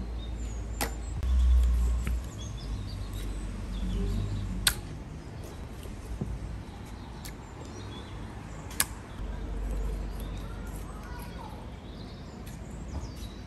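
Knife cutting raw sturgeon fillet on a wooden cutting board, with three sharp knocks spread about four seconds apart as the blade meets the board.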